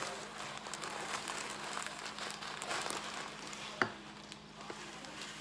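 Floam, glue slime packed with foam beads, being mixed and squished: a soft crackling and crinkling with many small clicks, and one sharper click about two-thirds of the way through.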